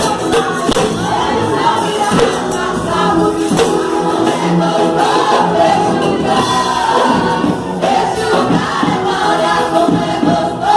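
Live gospel music: a church percussion group playing loudly under a group of voices singing.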